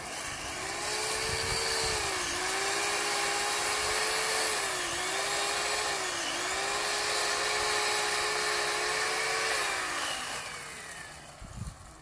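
Chainsaw running at full speed as it cuts into a tree trunk. Its pitch dips briefly three times as the chain bites, then winds down and stops near the end.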